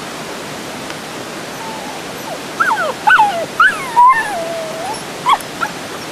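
Malinois puppies whining and yipping: a run of short falling whines starting about two and a half seconds in, with one longer drawn-out whine about four seconds in. A steady rushing noise runs behind them.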